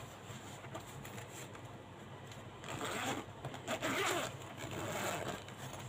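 Zipper of a fabric Ohuhu marker case being pulled open, rasping in a couple of runs from nearly three seconds in.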